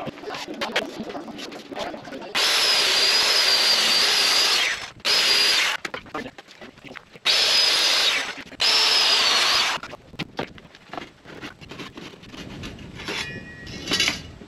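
A jobsite table saw running and cutting through wood in four stretches, each a steady high motor whine over blade noise that starts and stops abruptly. Lighter knocks and clatter of wood being handled follow.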